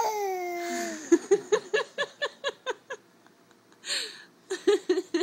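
Baby's voice: a high squeal that falls in pitch, then a quick string of about nine short 'ah' sounds, about five a second, then a breathy puff and a few more short sounds near the end.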